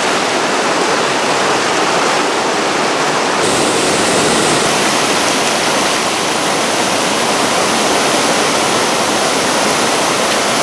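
River rapids rushing loudly and steadily, a dense white-water roar of churning, foaming water.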